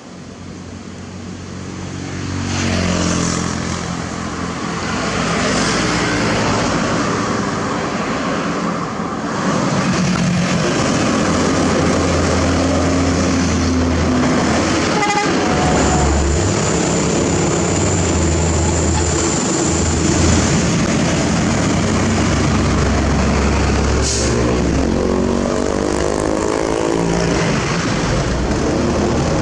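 Heavy diesel trucks passing close one after another, their engines running under load, with the engine pitch rising twice as they pull past. A vehicle horn toots briefly partway through.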